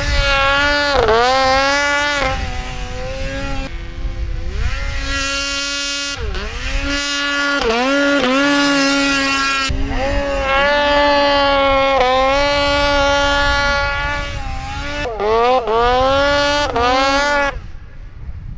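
Snowmobile engine revving hard and easing off again and again as the sled carves across the snow, its pitch sweeping up and down several times, with a quick run of rising and falling revs near the end.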